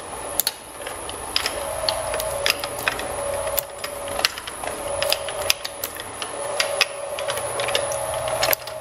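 Twin-shaft shredder's steel cutter discs turning, with a mid-pitched whine that comes and goes and many irregular sharp clicks and cracks as small hard plastic toy dinosaurs rattle on the blades and are cut.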